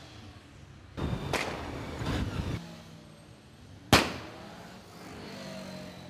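Motorcycle engine noise swelling about a second in, then a single sharp, loud exhaust bang about four seconds in: a backfire set off by cutting the kill switch.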